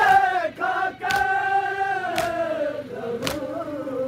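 Group of men chanting a noha, a Muharram lament, in unison and holding long notes, with sharp strikes of matam (hands beating on chests) about once a second.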